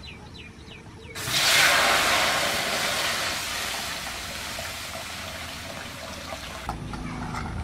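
Water poured in a steady stream from a steel jug into an empty aluminium cooking pot, starting about a second in and stopping shortly before the end. The splashing is loudest as the stream first hits the bare metal and eases as the pot fills.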